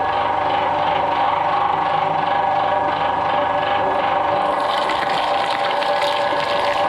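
Twin-shaft shredder running, its motor and gear drive giving a steady whine, while the toothed blades catch and crunch through whole green fruit, the crunching heaviest about five seconds in.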